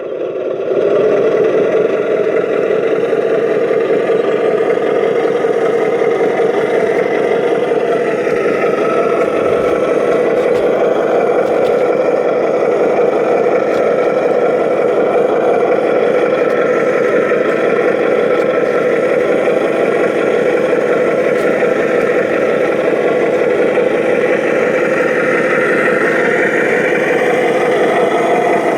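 Radio-controlled model truck running, a steady engine-like drone with slight shifts in pitch throughout.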